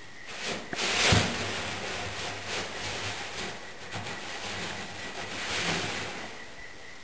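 Polystyrene bean-bag beads rustling and hissing as a cat burrows through them, in uneven swells. The loudest rush, with a low thump, comes about a second in.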